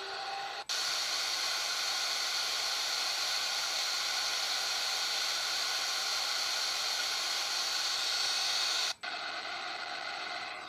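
Steady hiss of an ambient noise track from a white-noise app. It cuts out briefly about two-thirds of a second in as a louder, brighter track starts, and again near the end as the sound switches to another, quieter track.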